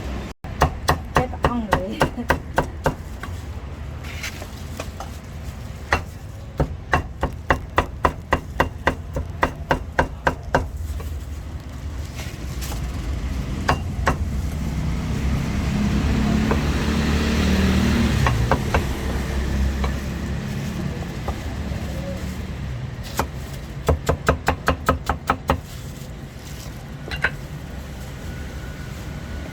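A cleaver chopping roast meat on a chopping block, in quick runs of sharp strikes about four a second: three runs, one at the start, one about six seconds in and one near the end. In the middle a low rumble swells and fades.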